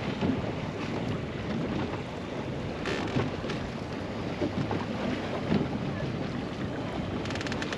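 Steady wind buffeting the microphone over choppy water around a small boat, with a few faint clicks about three seconds in and again near the end.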